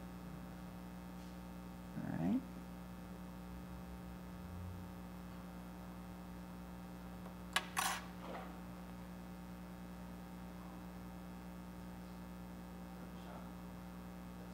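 Steady low electrical mains hum, with a brief low sound about two seconds in and two sharp little clicks about halfway through.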